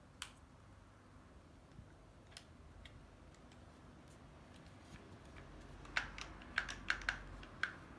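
Sharp little clicks and taps of plastic washer dryer door-handle parts being handled and worked: a few scattered clicks, then a quick run of about six clicks near the end.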